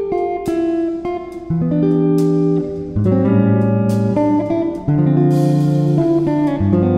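Instrumental background music with plucked guitar notes over a bass line.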